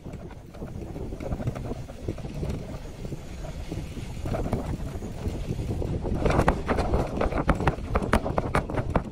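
Bicycle rolling over a bumpy dirt track, heard from its wire basket: a low rumble of tyres and wind on the microphone. From about six seconds in, a quick run of clicks and rattles joins it as the bike jolts.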